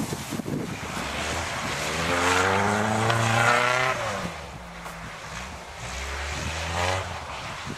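Opel Omega coupe's engine revving hard as the car is driven across a snowy field: the revs climb for a couple of seconds, drop about four seconds in, then climb again near the end.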